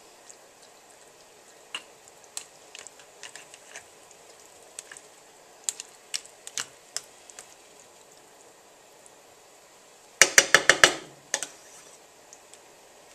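Light clicks and taps of a plastic canning tool against a glass mason jar of meat sauce as the tool is worked down inside the filled jar. About ten seconds in comes a quick run of six or seven sharp, loud knocks lasting under a second.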